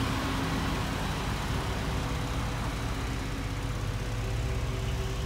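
Ford Transit's 3.5-litre EcoBoost V6 idling, a steady low hum with a few faint steady tones above it.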